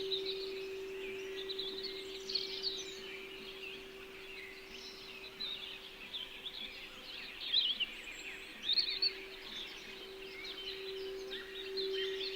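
Many small birds chirping and twittering in quick high calls, over one steady sustained singing-bowl tone that grows a little louder near the end.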